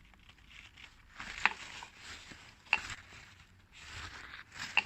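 Handling noise from the removed crankcase ventilation valve cover, diaphragm and spring: short rustling scrapes with three sharp plastic clicks.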